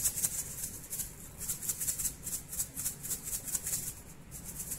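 Salt being shaken from a plastic shaker: a quick, rhythmic rattle of grains, about four or five shakes a second, with a short pause near the end.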